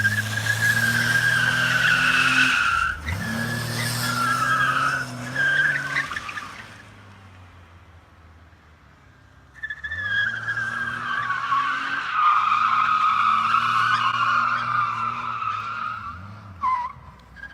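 1984 BMW 528e inline-six engine revving hard while its rear tires squeal in long screeches during a slide, its welded rear differential spinning both rear wheels together. It comes in two bouts, with a quieter lull of a few seconds between them.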